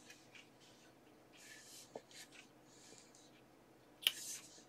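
Faint rubbing and scuffing of hands on a wooden drawer panel as it is held up and turned, with a small tick about two seconds in and a sharper click about four seconds in.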